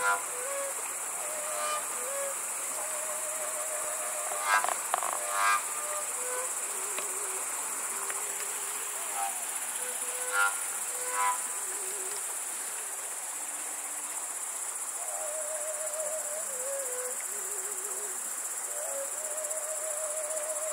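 A Podbrezová fujara, the long Slovak overtone shepherd's flute, plays a slow melody of held, wavering notes broken by a few short, loud overblown flourishes. Behind it, crickets chirr steadily.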